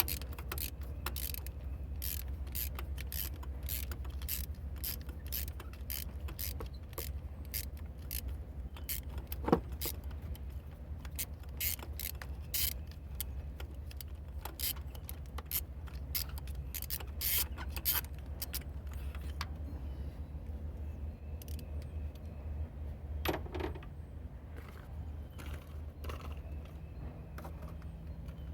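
A hand ratchet and socket clicking, with metal tools clinking, while a spark plug or its coil-pack bolt is worked loose. The clicks come thick and fast for most of it, then thin out, with one louder knock about a third of the way in, over a steady low hum.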